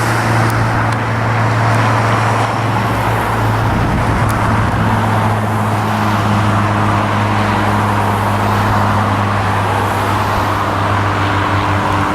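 Low-flying plane passing directly overhead: a loud, steady engine drone with a low hum, its upper tones shifting lower about four seconds in and shifting again near the end.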